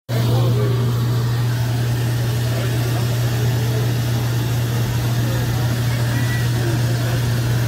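A steady low mechanical hum that does not change, with faint crowd voices behind it.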